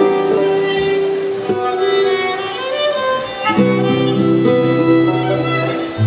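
Slow instrumental music of long held notes and chords, changing twice.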